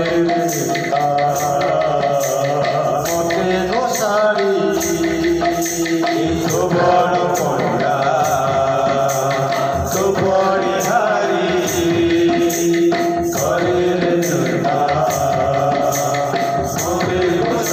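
Devotional kirtan: male voices singing a bhajan to the mridanga drum, with small jhumka hand cymbals striking a steady beat throughout.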